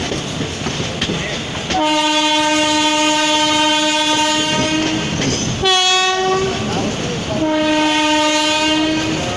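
Locomotive horn sounding three times: a long steady blast of about three seconds starting about two seconds in, a short higher-pitched blast, then a second long blast, over the clickety-clack of the train's wheels on the rails.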